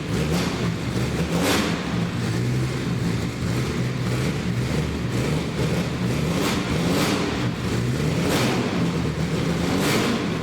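A car engine running and revving, its pitch rising and falling, with a few brief whooshing sweeps along the way.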